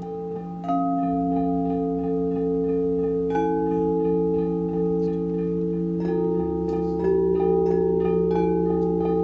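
Frosted quartz crystal singing bowls struck one at a time with mallets, about five strikes a second or more apart, each adding a new pure ringing tone that sustains over the tones still sounding from the others.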